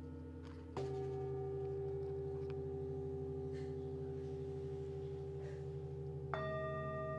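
Metal singing bowls ringing, struck with a padded mallet: one bowl is struck about a second in and a higher-pitched one near the end, each adding its tone over the earlier bowls still ringing on with a slow wavering.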